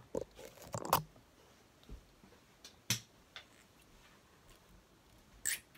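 A few light, scattered clicks and knocks from objects being handled, with a brief higher-pitched sound near the end.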